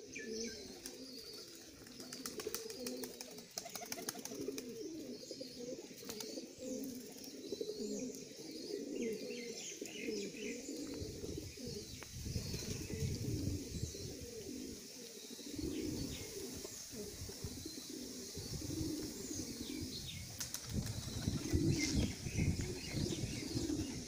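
Domestic pigeons cooing over and over in a continuous low warble while they feed, with scattered higher chirps of small birds. A low rumble comes in about halfway through and again near the end.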